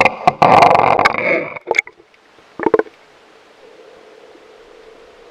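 A camera plunging into seawater: a loud splash and churn of water and bubbles with sharp knocks for about a second and a half, then two brief gurgles. After that a steady faint underwater hiss with a low hum.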